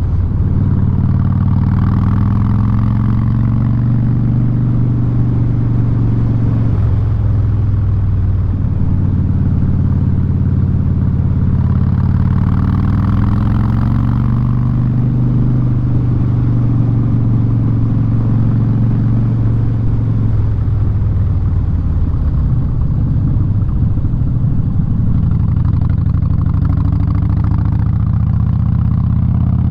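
Harley-Davidson Street Bob V-twin running loud through a Vance & Hines aftermarket exhaust while riding. Its note shifts about a quarter of the way in and again about two-thirds of the way in.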